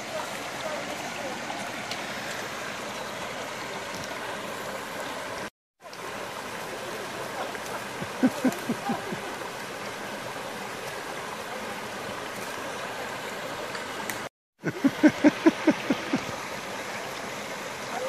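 Steady rushing of a shallow stream running over rocks in small cascades. Short bursts of voices come about eight seconds in and again near the end, and the sound drops out completely for a moment twice.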